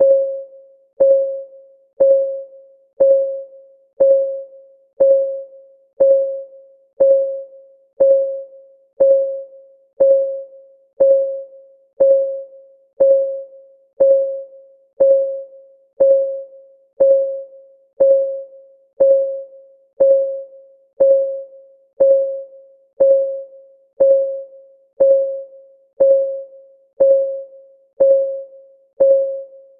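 Countdown-timer clock ticking sound effect: one steady tick every second, each a short pitched tick that dies away quickly.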